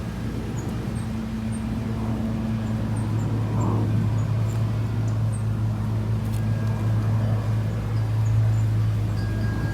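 A steady low machine hum that swells slightly mid-way and then eases, with faint high bird chirps scattered over it.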